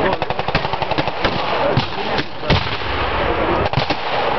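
Blank gunfire at a battle reenactment: a fast machine-gun burst of roughly ten shots a second for about a second, then scattered single shots, the loudest about two and a half seconds in.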